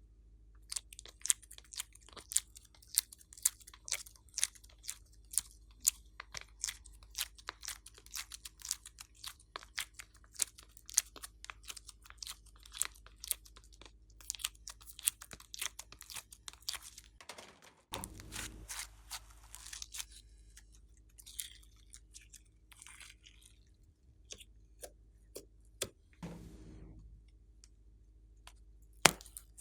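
Slime being pressed and kneaded by hand, giving off a rapid run of crisp crackling pops and clicks. Twice there is a longer, rougher sound, about halfway through and near the end.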